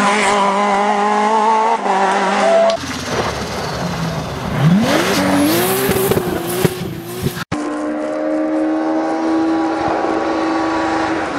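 Rally car engines at high revs across three clips: first an engine held at steady high revs, then a noisier stretch in which an engine revs up sharply about five seconds in, and after a sudden break about seven and a half seconds in, another engine held at steady revs.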